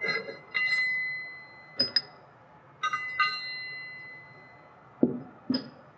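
Metal jaws of a DF-2000 torque-activated core chuck clinking against each other and the jaw retainer as they are pushed out and handled. There are about eight light metallic clinks, several ringing on clearly for a second or more, and two duller knocks near the end.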